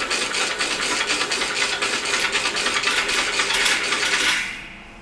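The remote-controlled winch of a homemade telescoping light mast winding in its string to raise the mast, a loud, fast mechanical rattle of clicking that stops about four seconds in.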